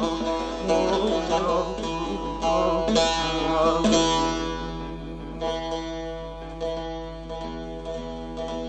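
Bağlama (Turkish long-necked saz) playing an instrumental passage of a Turkish folk song, with plucked notes over ringing drone strings. The strumming is busy for the first few seconds, then thins to quieter, sustained ringing notes.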